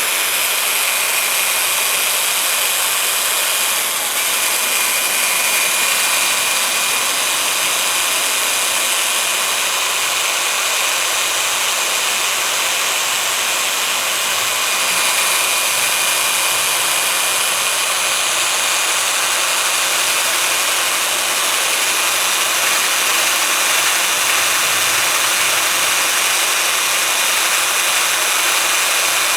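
Electric drill running steadily with a 3000-grit hook-and-loop sanding disc pressed to copper pipe, sanding off oxidation and paint dry, with no liquid, so the disc is clogging. A steady motor whine over scratchy abrasion, briefly dipping about four seconds in.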